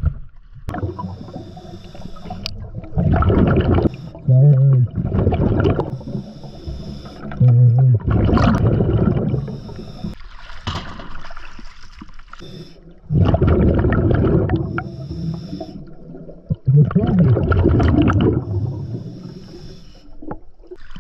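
Scuba regulator breathing heard through an underwater camera: a hissing inhale, then a loud rush of exhaled bubbles, repeating every four to five seconds over several breaths. Two short low hums come early on.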